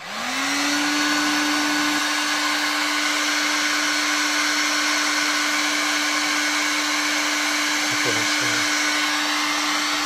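TexAC TA-01-049 heat gun switched on: its fan motor spins up over about half a second into a steady hum over an even rush of hot air, which then runs on unchanged.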